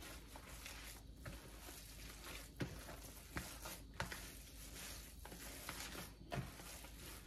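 Faint squishing of raw ground beef meatloaf mixture being worked by hands in thin plastic gloves in a plastic container, with a few short, slightly louder squelches.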